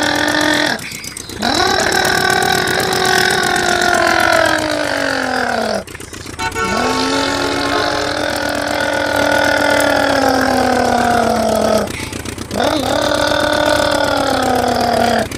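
Friction-powered toy auto rickshaw's flywheel motor whining as it is pushed by hand. Each push sends the whine up quickly, then it drops slowly in pitch over several seconds as the flywheel runs down; this happens three times with short breaks.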